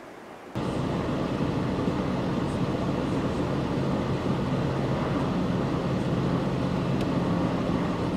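A vehicle runs steadily, with an engine hum and road rumble that cut in abruptly about half a second in.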